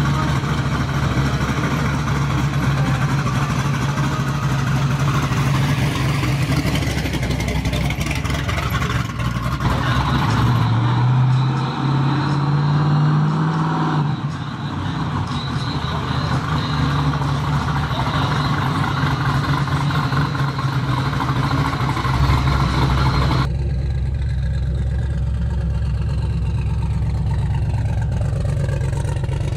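Supercharged V8 of a pro street Chevy II Nova rumbling at low speed, with a rev that rises and falls near the middle. Near the end an LS-swapped Dodge Ram pickup's V8 runs as it drives past.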